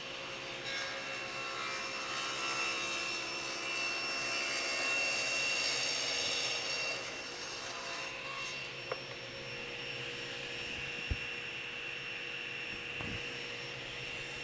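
SawStop table saw running with its dust collection on, the blade cutting through a maple and walnut end-grain plank on a crosscut sled. The cut is louder and busier from under a second in until about seven seconds, squaring the plank's edge. After that the saw runs on unloaded, with a couple of light clicks from the sled.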